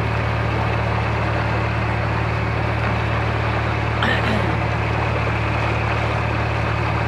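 Narrowboat diesel engine running steadily under way, a constant low drone.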